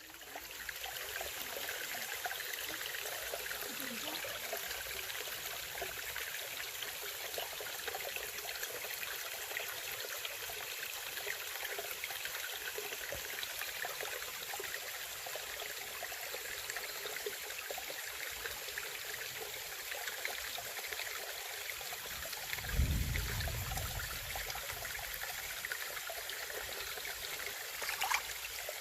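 Mountain stream running full after heavy rain, water rushing and splashing steadily over rocks. A low thump about two-thirds of the way through and a brief sharp sound near the end.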